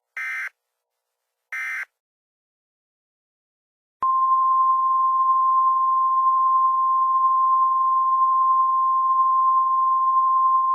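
Emergency Alert System digital data bursts: two short, identical screeching bursts about a second and a half apart, the end-of-message code closing the alert. After about two seconds of silence, a steady single-pitch alert tone just above 1 kHz starts and holds, in the manner of the 1050 Hz weather-radio warning tone.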